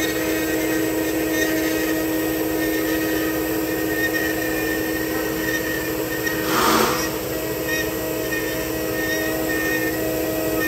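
4-axis CNC wood router's spindle running with a steady whine while a fine carving bit mills a wooden face relief, with a brief louder burst of cutting noise about six and a half seconds in.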